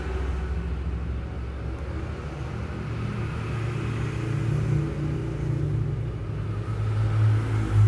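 Low rumble of a motor vehicle engine running, growing louder near the end.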